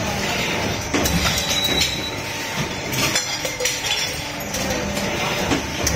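Metal bottle production line running: a steady mechanical din with irregular metallic clinks and knocks.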